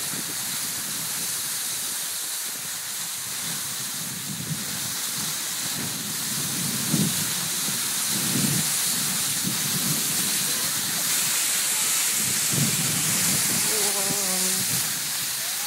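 Steady hiss of skis gliding over groomed snow, with a few short low rumbles along the way.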